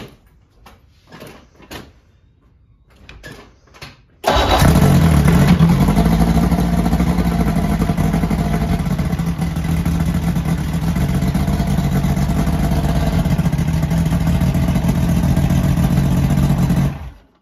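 Old carbureted outboard motor, cowling off, starting up abruptly about four seconds in after a few light knocks, then running steadily until it cuts off just before the end. It is running on the stand without cooling water hooked up.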